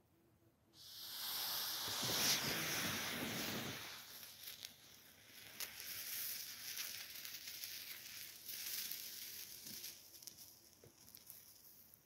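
Ignition charge of magnesium granules and rocket candy (potassium nitrate and sugar) catching on an aluminothermic reaction vessel: a sudden loud hiss about a second in, then a lower hissing burn with pops and crackles that dies down near the end. Only the igniter is burning; the main aluminothermic reaction has not yet taken off.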